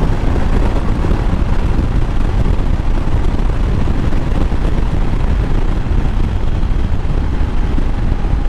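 Motorcycle riding at steady speed: the engine and exhaust running under heavy wind rush on the helmet microphone.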